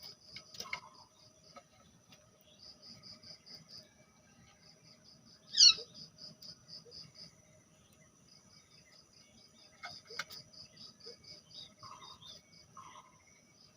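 High-pitched insect chirping: runs of quick, evenly spaced pulses at one pitch, starting and stopping. One short, sharp squeak that sweeps in pitch stands out about five and a half seconds in, and a few soft short calls come near the end.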